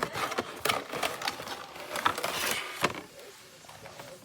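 Quick irregular clicks and rustling, close to the microphone, that die down about three seconds in.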